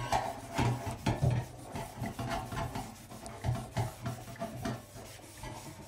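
A sponge scrubbing the bars of a stainless-steel roll-up dish rack in quick, irregular rubbing strokes.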